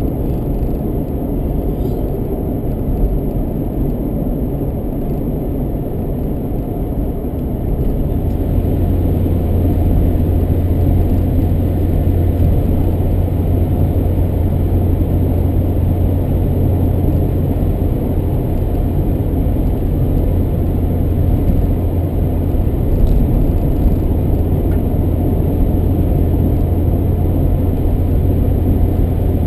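Steady rumble of a car's tyres and engine heard from inside the cabin while driving. About eight seconds in, a deeper drone sets in and the sound gets slightly louder.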